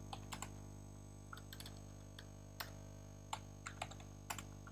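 Computer keyboard keys pressed slowly and sparsely: faint, irregular clicks, some in small clusters, over a steady low hum.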